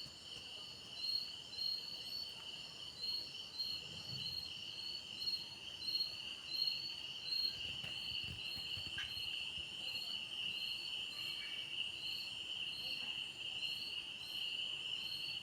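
Crickets or similar insects chirping steadily: a continuous high trill, with a second pulsed chirp repeating two to three times a second.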